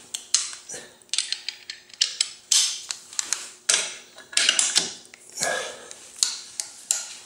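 A long-handled socket wrench on the rotor bolt of a KLR650 engine, the rotor held by a bolted holding plate, being worked toward final torque: irregular sharp metallic clicks, ratchet-like ticks and short scrapes.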